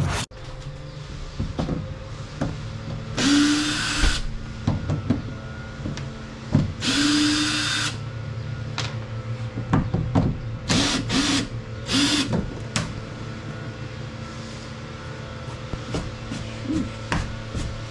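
Cordless drill run in several short bursts of about a second or less, each spinning up with a brief rising whine, with clicks and knocks of handling in between.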